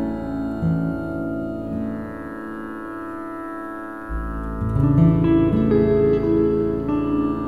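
Instrumental music of long sustained, layered tones; it thins and quietens for a couple of seconds, then a deep bass tone swells in about four seconds in and new, higher held notes enter just after.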